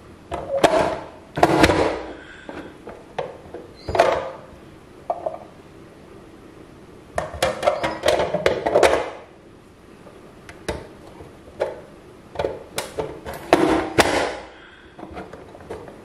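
Plastic push-down vegetable dicer being worked by hand: the lid pressed down to force pieces through the grid blade and lifted again. This gives irregular clacks and thunks in several clusters, with quiet gaps between.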